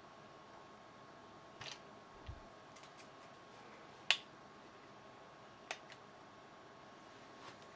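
A handful of short, sharp clicks from handling a handheld infrared thermometer and pressing its trigger, the loudest about four seconds in, with a soft low thud a little after two seconds. Under them runs a faint steady hum with a thin high tone.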